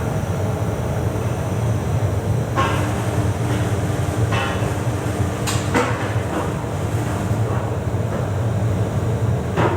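Steady low machine rumble with several sharp metallic knocks and clanks spread through it, and a faint steady hum for a few seconds in the middle.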